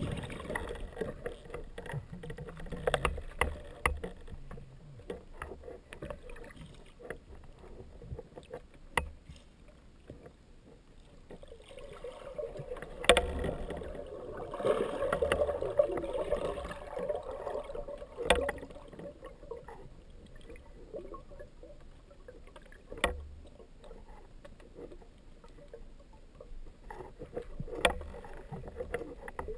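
Muffled underwater sound from a camera in a waterproof housing: a low wash of moving water with scattered sharp clicks and knocks, and a louder rushing stretch near the middle.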